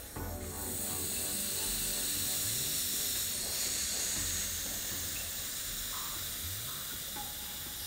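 Air hissing steadily out of an inflatable caravan awning's main air pole as its valve is slowly unscrewed, the pole losing pressure and deflating. The hiss starts suddenly and is quite loud.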